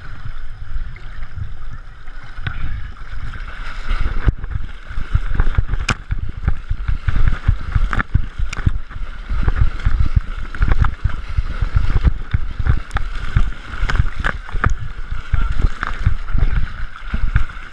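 Water splashing and sloshing right at the camera as an inflatable kayak is paddled down a river, with uneven low thumps and scattered sharp knocks over a steady rush of moving water.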